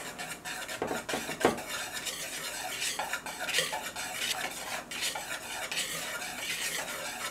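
Wire whisk beating dry flour and baking powder in a plastic mixing bowl: a fast, continuous run of scraping, rattling strokes against the bowl, with a few louder knocks about a second in.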